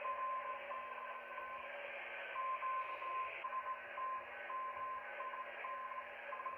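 Morse code heard through an amateur radio receiver: one steady tone keyed on and off in dots and dashes, with a pause of about a second and a half early on, over a band of receiver hiss and a low steady hum.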